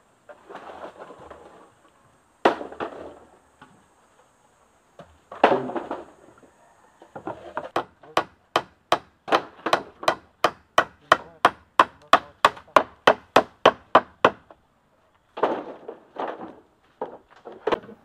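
Hammer blows on a bamboo frame joint, sharp wooden knocks. A few single blows come first, then a quick steady run of about three blows a second for several seconds, then a few more.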